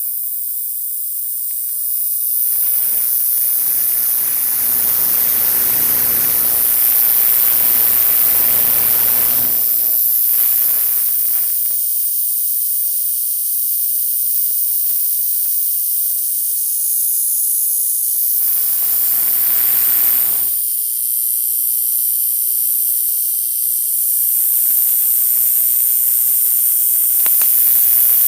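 LCD TV's power supply board giving off a steady, high-pitched electrical whine and buzz, the fault noise that is being traced. Stretches of louder hiss come and go on top of it.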